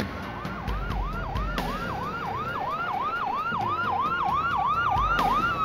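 Police siren on the fast yelp setting, sweeping up and down about three times a second and slowly growing louder, with a second slower siren tone under it. Near the end the yelp gives way to a long falling wail.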